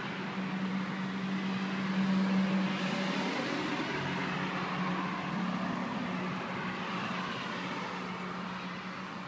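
Motor vehicle noise: a steady low engine hum with road noise that swells about two seconds in and then slowly eases off.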